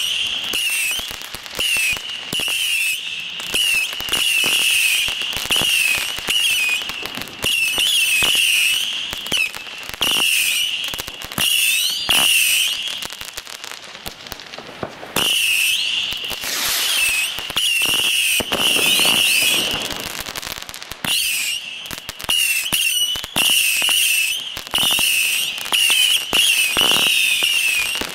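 Acid GP3050 'Panda' firework battery firing shot after shot, with dense crackling and sharp reports over a wavering high-pitched whistle that comes in repeated bursts. There is a short lull about halfway through, then the firing picks up again.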